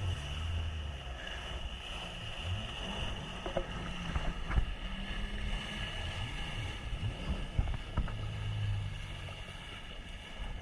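Yamaha GP1800 jet ski engine running, its pitch rising and falling with the throttle, with some wind on the microphone.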